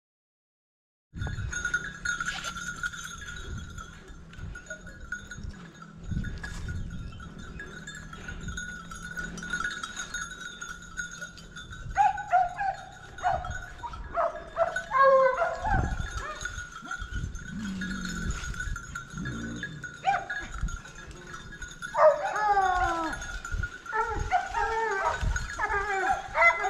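Hunting hounds baying in repeated bursts from about halfway on, over the steady ringing of the dogs' collar bells, after a second of silence.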